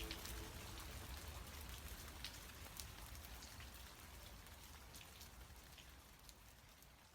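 Rain sound effect: a steady hiss of rainfall with scattered droplet ticks, faint and fading out gradually.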